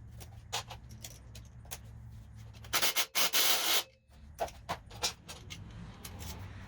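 Hand tools and metal engine parts clicking, knocking and scraping during an engine teardown, over a low steady hum. About three seconds in, a loud hiss lasts about a second.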